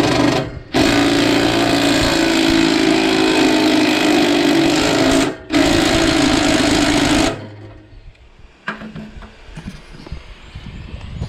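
A power driver spinning a socket to run a nut down onto a mower-deck stud, in three bursts: a short one, a long one of about four and a half seconds, and a shorter one, each stopping abruptly. Light clicks of handling follow.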